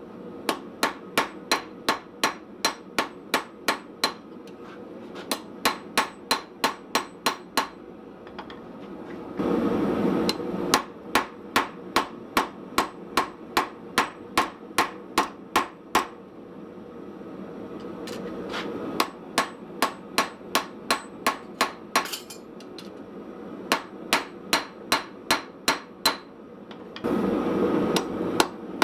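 Hand hammer striking hot steel on a small Austrian/German pattern anvil, in runs of quick, even blows at about three a second with a bright ring, paused now and then. Twice, about nine seconds in and near the end, a louder rushing noise sounds for a second or so.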